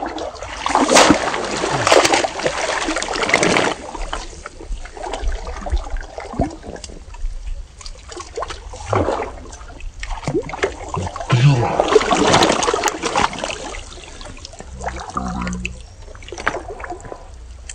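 Splashing and sloshing in shallow muddy paddy water as a bamboo plunge-basket fish trap is pushed and worked through it by a wading person. There are two longer bouts of splashing, one starting about half a second in and one around eleven to thirteen seconds in, with smaller splashes between.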